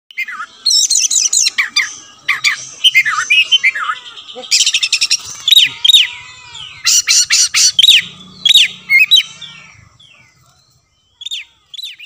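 Oriental magpie-robin (kacer) singing a loud, varied song of rapid whistled phrases, sweeping notes and sharp clicks. The song tapers off about ten seconds in, followed by two short notes near the end.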